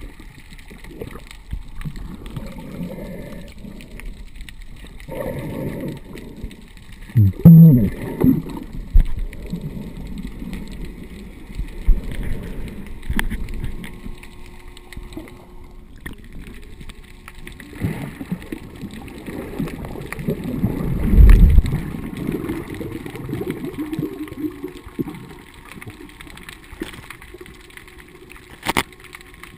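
Muffled underwater water noise picked up by a submerged camera: low rushing and bubbling as the diver moves through the water, swelling loudest about seven seconds in and again around twenty-one seconds, with a single sharp click near the end.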